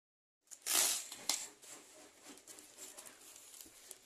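Plastic courier bag crinkling and rustling as hands pull it open, loudest just under a second in, with a sharp crackle soon after and quieter crackling after that.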